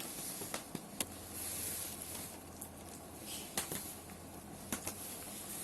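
Plastic packaging rustling, with scattered light clicks and knocks as CD cases are handled.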